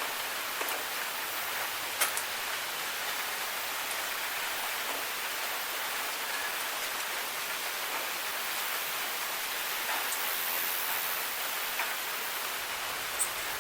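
Steady rain falling, an even hiss, with a few sharp drop ticks, the loudest about two seconds in.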